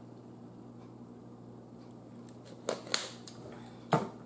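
Drinking from a thin plastic water bottle: a few sharp crinkles and clicks of the plastic about two-thirds of the way in, then a short knock near the end as the bottle is set down on the table. A steady low room hum runs underneath.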